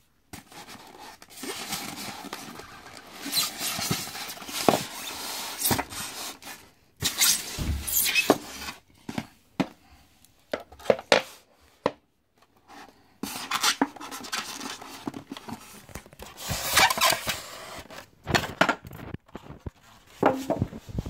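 Unboxing handling noise around a Sizzix Fold Away die-cutting machine: packaging rustling and scraping, with irregular clicks and knocks as parts are moved, broken by short pauses.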